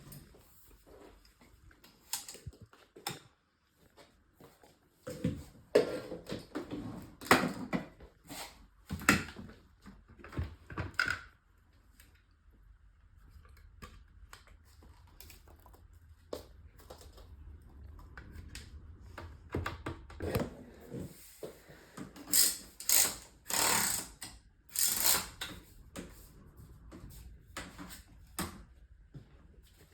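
Irregular clatter of hard objects being handled: scattered clicks and knocks, in two busier spells, with a faint low hum beneath. No vacuum motor is running.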